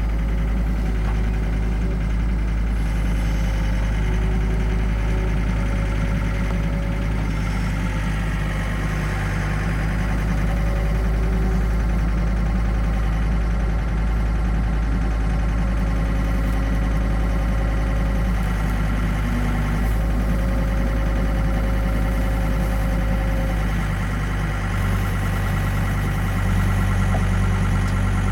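John Deere 325 skid steer loader's diesel engine running steadily while the loader picks up and lifts a round hay bale on a bale-slicer attachment.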